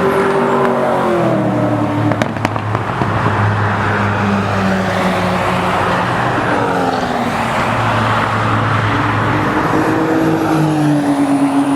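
Cars at speed on an oval track passing one after another, engines running hard at high revs, each engine's pitch dropping as it goes by.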